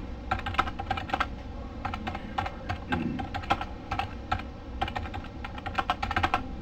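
Typing on a computer keyboard: uneven keystroke clicks, a few a second, as a sentence is typed out.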